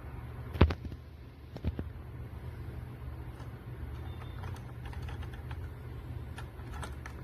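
Keys or buttons being pressed: two sharp clicks about a second apart, then a run of fainter, quicker light clicks, over a steady low hum.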